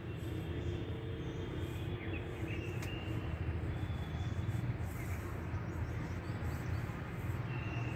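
Outdoor background: a steady low rumble with a few faint bird chirps.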